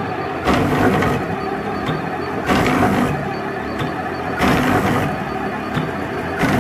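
Ultimaker 3D printer's stepper motors driving the print head in fast loops around the vase, a continuous whirring and buzzing that swells louder about every two seconds as each loop repeats.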